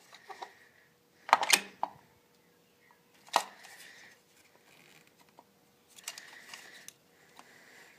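Metal clicks and knocks, with brief rustling in between, as a distributor is worked down into the engine and turned to seat it, with the engine off.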